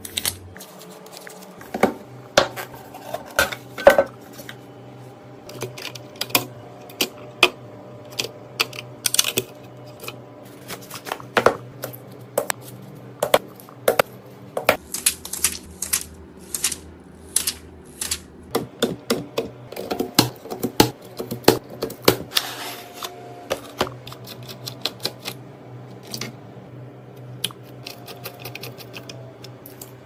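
Irregular clicks, taps and light clatter of computer parts being handled: an ASUS ROG motherboard's metal heatsink covers, its plastic box tray and RAM modules, over a steady low hum.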